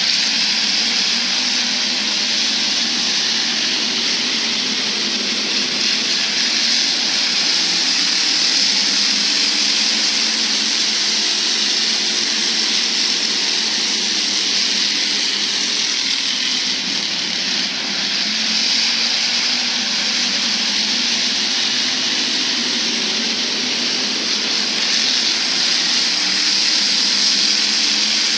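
A field of hobby stock race cars running at speed on a dirt oval: a steady, continuous blend of several engines' noise with no single car standing out.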